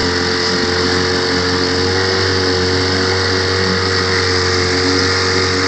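Johnson Sea-Horse two-stroke tiller outboard motor running at a steady throttle while the boat is under way, a constant even drone with water noise from the wake.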